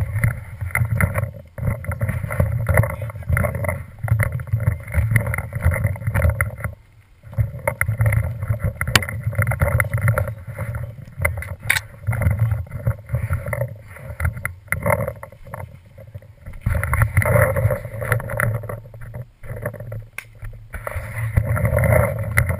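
Muffled rumble and rustle of walking with an action camera in its housing on a paintball marker: footsteps on a dirt trail and gear jostling, swelling and fading with each stride. A few sharp clicks come through.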